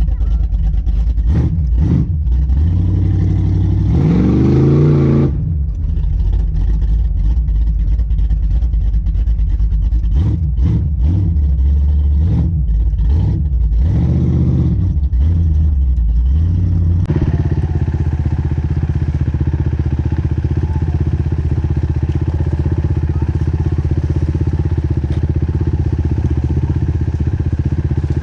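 A motor vehicle engine revving up and down several times. About two-thirds of the way through it changes abruptly to a steady engine drone.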